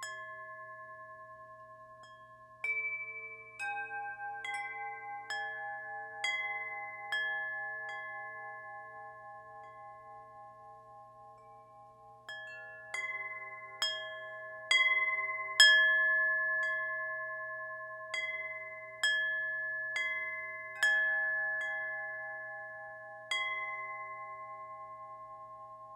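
Wind chimes ringing: scattered strikes on chimes of several different pitches, each tone ringing on and slowly fading. There is a lull about eight to twelve seconds in, then a busier run of strikes.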